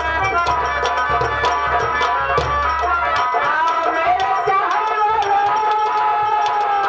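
Live nautanki folk music: fast dholak drumming over a harmonium. About halfway through, a singer comes in with a long held line that glides up at its start.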